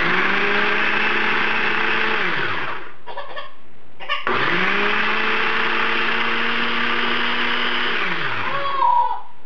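Small food processor motor pureeing banana with water, run in two pulses. It runs steadily for about two seconds and spins down after switch-off, then after a short pause runs again for about four seconds and spins down once more.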